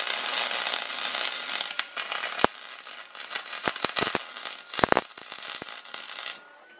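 MIG welding arc on aluminum, fed from a spool gun: a crackling hiss with scattered sharp pops. It is dense for the first couple of seconds, turns more broken and sputtering after that, and stops shortly before the end.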